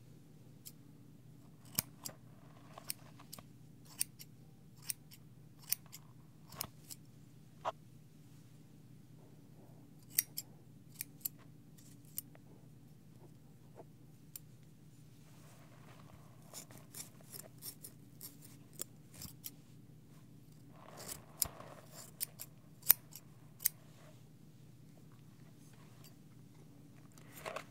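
Haircutting scissors snipping close to the microphone. Single sharp snips come about once a second at first, then in short quick groups, with soft rustling between them.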